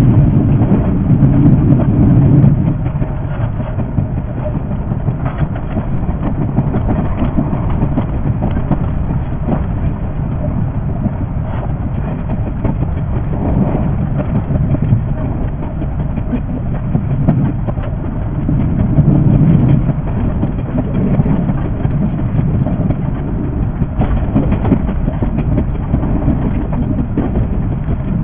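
Running noise of a 381 series electric express train, heard from the driver's cab and sped up six times: a dense, fast clatter of wheels on the rails over a low rumble. It is louder at the start and again about two-thirds of the way through.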